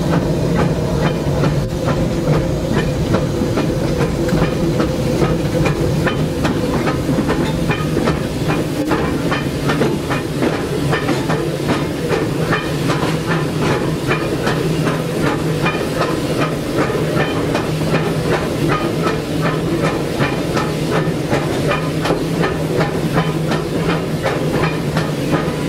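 Steam locomotive running, heard from inside its cab: a steady hiss of steam with a fast, regular clatter.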